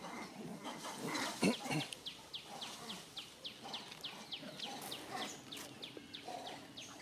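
A bird calling in a fast run of short, falling chirps, about four a second, from about two seconds in until past five seconds. A short, louder low sound comes about one and a half seconds in.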